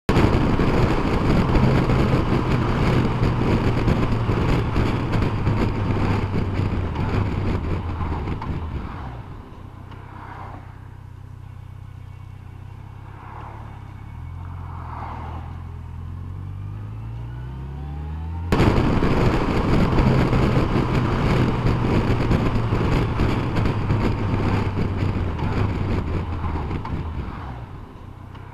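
Yamaha motorcycle at road speed, with loud wind rush and engine noise, slowing hard about nine seconds in as the rider brakes behind stopping traffic. The engine drops to a low, quieter note, then its pitch rises as it pulls away. After a sudden cut the same loud riding and slowing stretch plays again.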